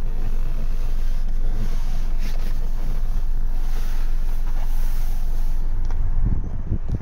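Wind buffeting the microphone, a steady low rumble with a few stronger gusts near the end.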